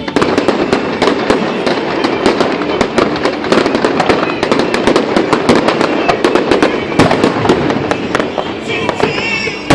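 Fireworks display: a dense, rapid barrage of shells bursting and crackling, many sharp cracks close together over a constant rumble, starting abruptly and going on throughout.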